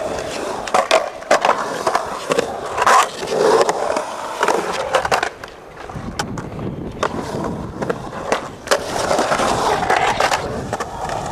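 Skateboard wheels rolling and carving on a concrete bowl, a continuous rolling rumble with repeated sharp knocks and clacks from the board and trucks. It drops briefly quieter a little past halfway, then the rolling comes back.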